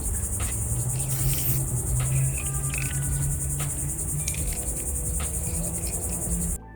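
Crickets chirping in a steady, rapid pulse over a low, steady hum. Both cut off abruptly near the end, giving way to guitar music.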